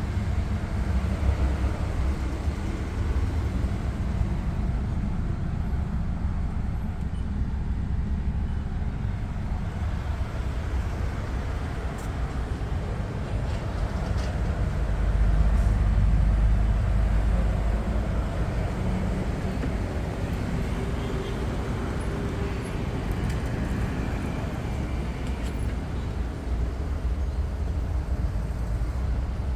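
Steady low vehicle rumble that swells louder about halfway through, then eases back.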